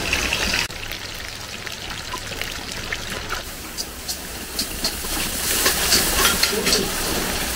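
Minced snake meat patty sizzling as it shallow-fries in hot oil in a pan, with popping, spattering crackles that grow busier in the second half.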